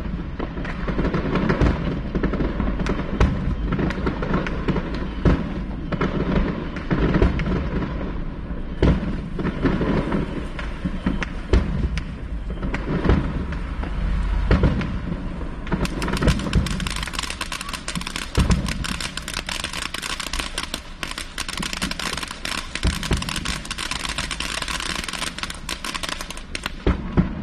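Fireworks going off in quick succession: a continuous run of bangs and low booms, with a dense crackling over the second half.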